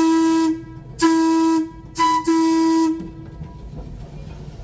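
Trolley air whistle (Springfield Electric Railway car 16) sounding four steady blasts: long, long, short, long. This is the standard signal for approaching a grade crossing.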